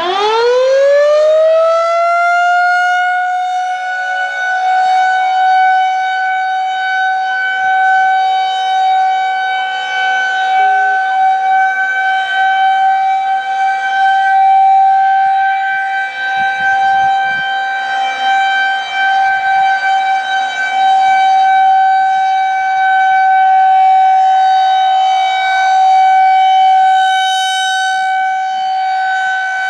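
Federal Signal 2001-130 outdoor warning siren sounding its steady Alert signal: it winds up quickly over the first couple of seconds, then holds one loud, steady tone, its loudness wavering.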